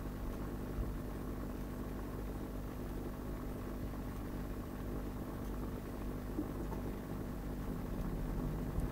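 Aquarium pump running with a steady hum.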